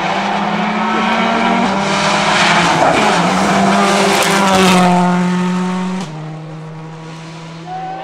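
Subaru Impreza WRC rally car's turbocharged flat-four engine running hard as the car passes through a corner, loudest a little past the middle, its pitch stepping with gear changes; the level drops suddenly about six seconds in.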